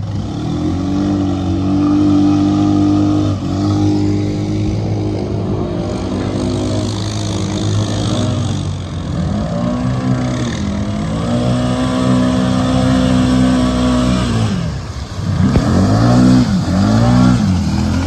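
ATV engines running and revving in deep creek water, the pitch holding steady at times and then rising and falling in several quick revs near the end, with water splashing and churning around the tyres.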